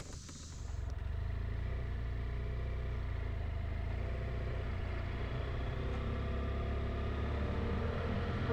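BMW F800GT motorcycle's parallel-twin engine pulling away and running steadily at low speed as the bike rides off down a road. The sound comes up about half a second in.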